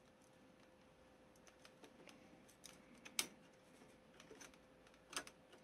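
Faint, scattered clicks of a screwdriver turning a small screw into a plastic model-kit frame, with a louder click about three seconds in and another near the end.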